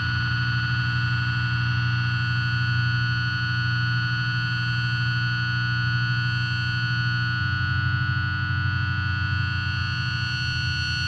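A steady, distorted drone of held tones over a heavy low hum, with no beat or changing notes.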